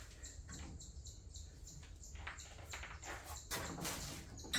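Faint scattered clicks and light scraping of hands working on the ATV's wiring and plastic parts, a little busier near the end.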